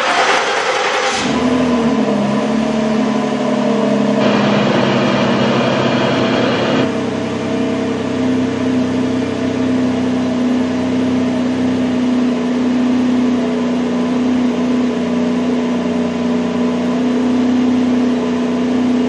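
Ford Edge engine starting: about a second of cranking, then it catches, drops in pitch and settles into a steady idle.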